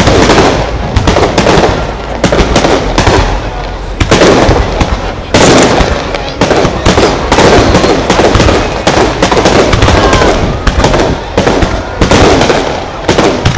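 Fireworks display: a rapid, continuous barrage of bangs and crackling as aerial shells burst one after another, loud throughout and growing denser about five seconds in.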